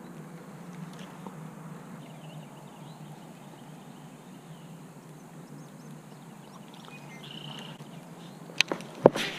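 Quiet outdoor ambience with a low steady rumble. A brief high chirp comes near the end, followed by two sharp knocks about half a second apart, most likely from handling the fishing rod and reel against the camera.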